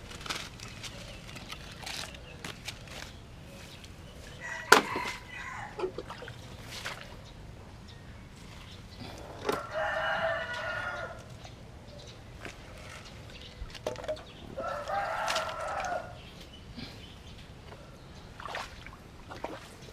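A rooster crowing twice, each crow about two seconds long. Scattered clicks and one sharp knock a few seconds before the first crow.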